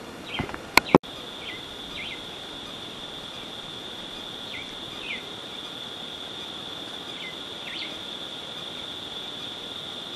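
Crickets or other insects making a steady high trill, with short chirps every second or two. Two sharp clicks about a second in, just before the trill comes in.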